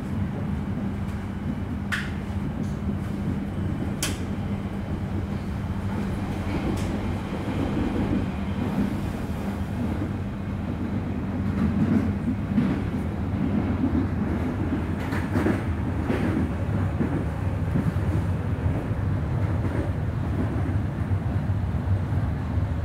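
Inside the carriage of an electric suburban train on the move: a steady rumble of wheels on the track under a low, even hum. There are a couple of sharp clicks about two and four seconds in.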